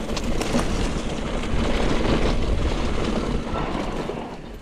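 Mountain bike running fast down a dirt trail: tyres rolling over dirt and dry leaves while the bike rattles over bumps. Loudest about two seconds in, then easing off.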